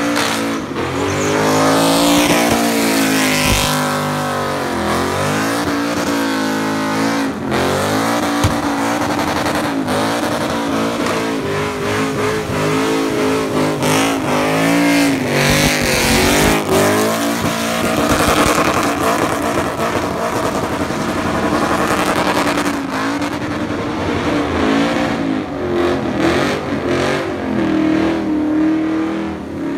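Toyota Land Cruiser farm truck doing a burnout: its engine is revved hard, the pitch rising and falling again and again, over the squeal and hiss of spinning tyres.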